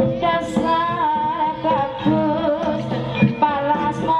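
Live Javanese jaranan music: a wavering sung melody over gamelan tones, punctuated by sharp drum strikes.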